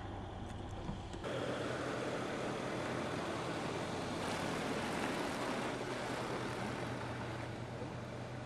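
Mercedes-Benz CLS 500 4MATIC's V8 running as the car drives slowly past, a steady low engine hum with tyre noise. The sound comes in suddenly about a second in, swells towards the middle and eases off as the car pulls away.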